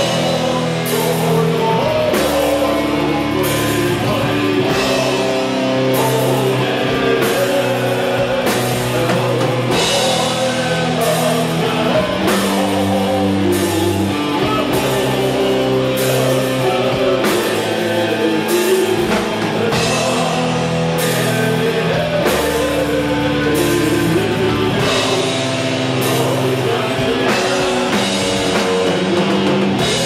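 Metal band playing live: distorted guitars, a drum kit keeping a steady beat with a hit about every three-quarters of a second, and a singing voice over the top.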